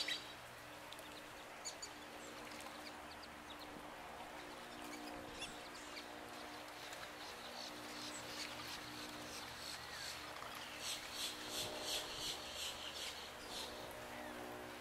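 Black-bellied whistling duck ducklings peeping: scattered high, short peeps, then a quick run of several a second for a few seconds about two-thirds of the way in. A steady low hum lies underneath.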